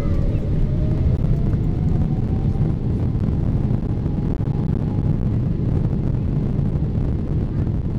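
Airliner's jet engines heard from the cabin over the wing: a heavy, steady rumble with a faint whine rising slowly in pitch over the first few seconds, as the aircraft rolls along the ground for takeoff.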